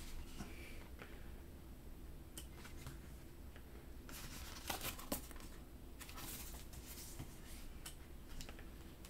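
Paper pages of a booklet being turned and handled: a few soft rustles and light paper clicks, the loudest about five seconds in.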